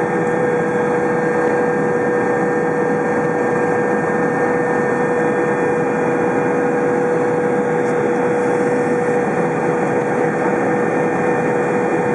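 Agusta A109 twin-turbine helicopter heard from inside the cockpit during lift-off and climb: a steady drone of engines and rotor with a constant whine over it.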